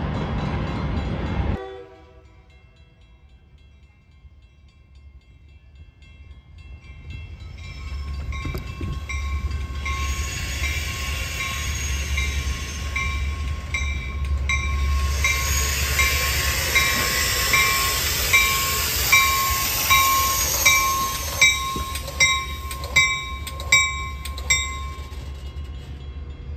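A train approaching and running past, its low rumble and hiss building from a few seconds in. Later a regular clicking comes in, about every 0.7 seconds. A loud sound cuts off suddenly near the start.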